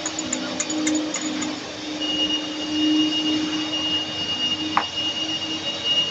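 Steady hum of running workshop machinery, a low drone with a high thin whine that comes in about two seconds in. There are a few light clicks in the first second or so, and a brief rising squeak near the end.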